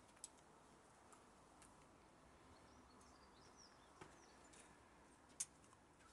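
Near silence: faint background hiss broken by a few small sharp clicks, the sharpest about five and a half seconds in, with faint high chirps around three seconds in.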